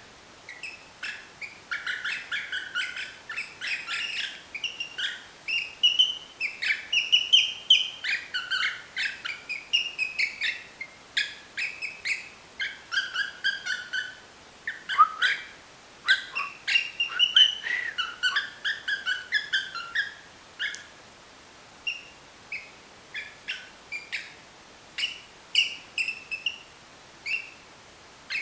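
Cockatiel whistling a tune made of quick, short chirped and whistled notes, many of them gliding up or down. The notes come thick and fast for about twenty seconds, then thin out into scattered single chirps.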